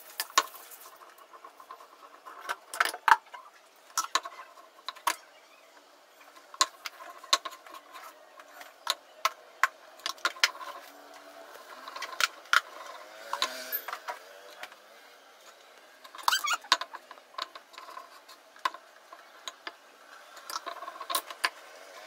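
Wooden rolling pin and round wooden board knocking and clattering on a stone counter as paratha dough is rolled out: irregular sharp knocks, one or two a second, with a few louder clusters.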